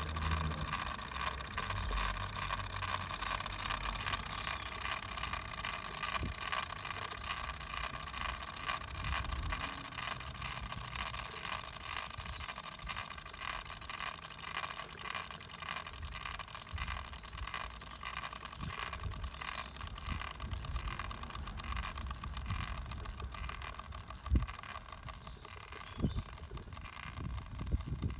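Wilesco live-steam model traction engine running under steam, its small steam engine chuffing in a steady rhythm over a hiss of escaping steam. A few dull knocks sound near the end.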